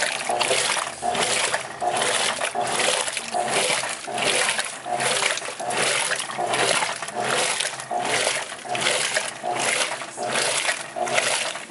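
Electrolux LTE09 top-loading washing machine agitating, its agitator churning the water in an even rhythmic swish-slosh about once every 0.8 seconds.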